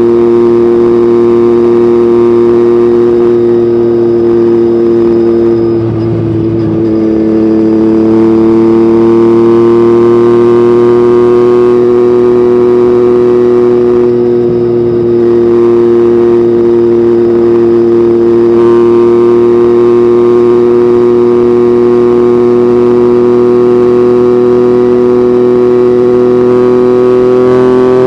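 Yamaha MT-09's crossplane three-cylinder engine through an Akrapovic exhaust, running at a steady cruising note. It dips briefly about six seconds in and again about fifteen seconds in, and the pitch starts to rise near the end.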